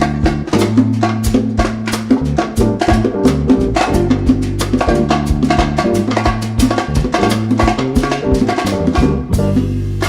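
Live band playing an instrumental passage of Latin dance music: busy, even percussion strikes over a steady bass line.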